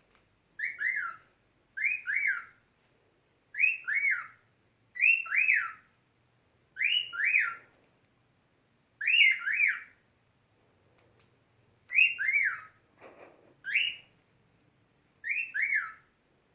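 Cockatiel repeating a short two-note whistled chirp, each a pair of quick rising-and-falling sweeps in pitch, about nine times at intervals of one to two seconds.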